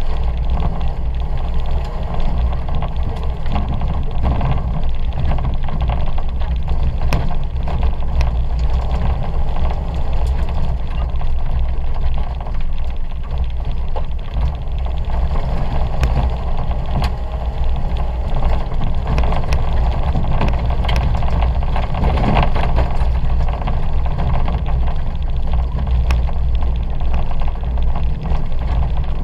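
Ford Fiesta 1.2's four-cylinder petrol engine running hard under racing load, heard from inside the cabin, over a steady low rumble from the rough dirt track, with scattered sharp ticks.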